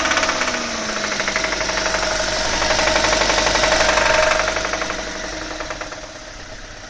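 A 2000 Honda Civic's four-cylinder engine running under throttle with a rapid, continuous knock that follows engine speed, building for about four seconds and then easing back. It is rod knock from the engine having been run dry of oil.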